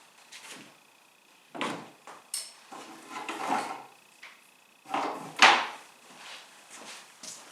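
Shop items being picked up, moved and set down while clearing off a workbench: irregular knocks and clatters of wood and tools, the loudest about five and a half seconds in.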